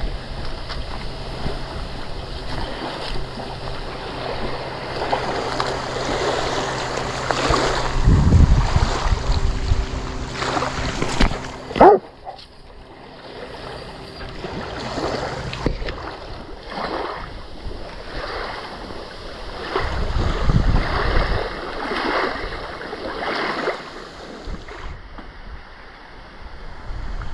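Wind gusting against the microphone, strongest about eight and twenty seconds in, over small waves lapping at the shore. A brief sharp sound about twelve seconds in.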